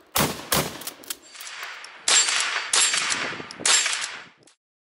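Rifle shots: two sharp shots in the first half second, then three louder shots in the second half, each trailing off, about three-quarters of a second apart.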